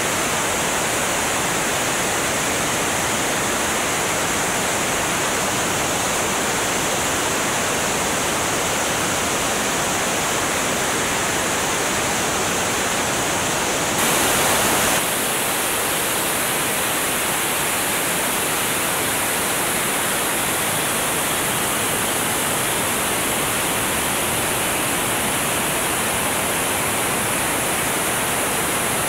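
Steady rush of airflow over a wing-mounted camera on a small propeller plane in flight. There is a brief louder surge about halfway through, after which the hiss changes slightly in tone.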